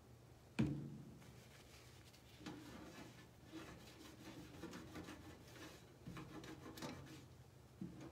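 A single sharp knock just over half a second in, then a cloth wipe rubbing in short, irregular strokes over the tote's painted surface, wiping off leftover chalk paste marks.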